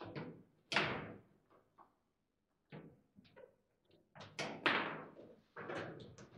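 Foosball table in play: a series of sharp hard knocks and thuds as the ball is struck by the figures and the rods bang against the table. One loud knock under a second in, a short lull around two seconds, then a quick cluster of loud knocks a little past the middle.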